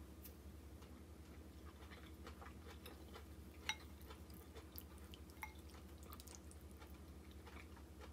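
Faint clicks and small wet sounds of wooden chopsticks lifting thick ramen noodles out of broth in a ceramic bowl, with one sharper click about halfway through, over a low steady hum.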